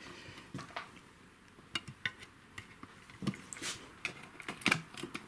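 Light plastic clicks and taps as a Ducati Diavel's windscreen is pressed and clipped back into place on the front fairing, scattered irregularly through the few seconds.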